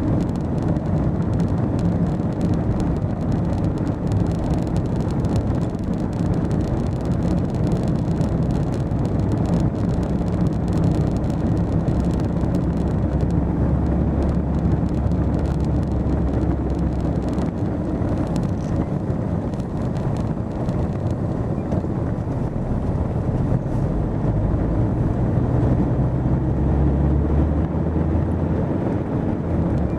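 Car engine and road noise heard from inside the moving car: a steady low drone whose pitch shifts up and down with speed and gear changes.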